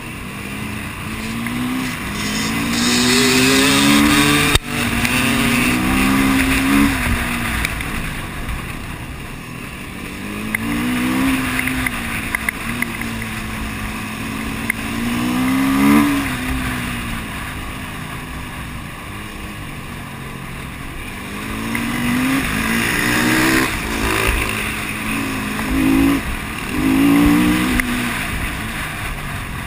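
KTM enduro dirt bike's engine heard from on the bike while riding a gravel track, its pitch rising and falling again and again as the rider opens and closes the throttle, over a steady rushing noise. A single sharp knock comes about four and a half seconds in.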